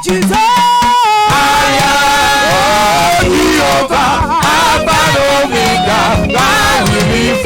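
Live church worship music: a singing voice holding and bending notes over a full band, which comes in fully about a second in.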